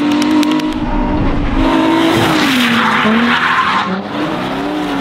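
Drift car sliding through a corner, its engine revving hard while the tyres squeal and skid. The engine note sinks as the tyre noise peaks in the middle, then climbs again near the end.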